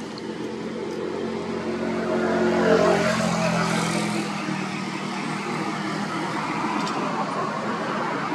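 A motor vehicle's engine hum swelling to a peak about three seconds in and then fading, as a vehicle passes, over steady background noise.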